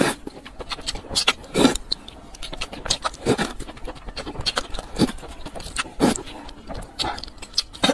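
Close-miked slurping of noodles in spicy broth, with wet mouth clicks and smacks; a longer, louder slurp comes every one and a half to two seconds.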